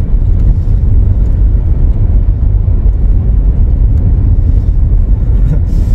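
Steady low rumble of a car on the move, heard from inside the cabin: engine and road noise from the tyres.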